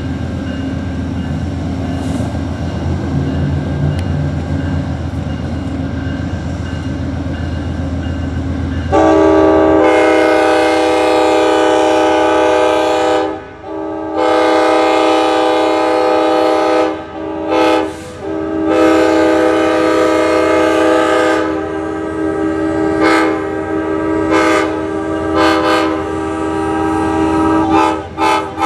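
Amtrak P42DC locomotive running steadily, then about nine seconds in its Nathan K5LA five-chime air horn sounds: several long blasts, then many short, quilled blasts near the end.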